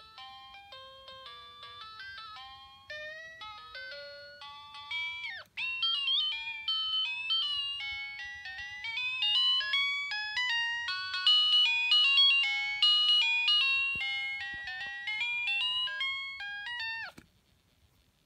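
A toy's electronic sound chip plays a fast beeping tune through a small bare speaker, the notes stepping quickly up and down. About five seconds in it drops away in a sudden downward pitch slide, then comes back louder. It cuts off with another downward slide near the end.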